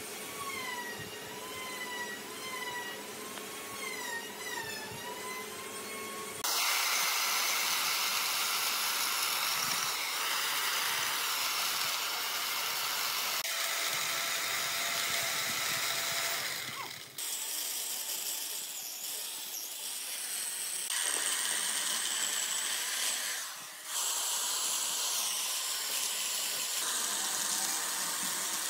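Corded electric chainsaw cutting into a large log, a loud steady cutting noise from about six seconds in, with a few brief breaks. Before it, a quieter wavering whistle-like tone.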